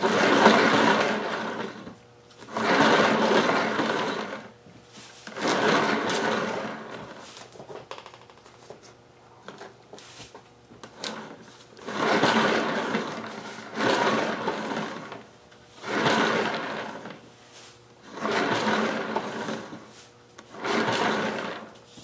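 Paint-pouring spinner turned by hand under a heavy canvas board: a noisy whir in repeated surges of a second or two, one after each push, with a longer pause about halfway through.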